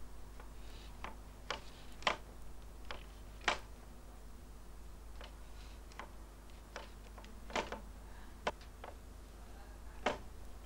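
Metal palette knife tapping and dabbing paint onto a canvas: a dozen or so sharp, irregularly spaced clicks, over a low steady hum.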